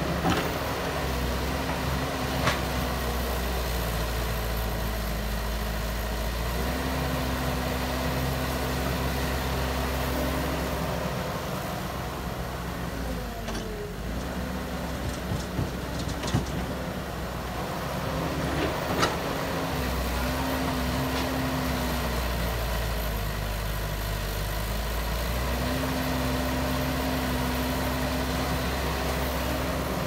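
CAT tracked hydraulic excavator's diesel engine running steadily under load, its note dipping and rising as the hydraulics swing the boom and bucket. A few sharp knocks come from the working bucket.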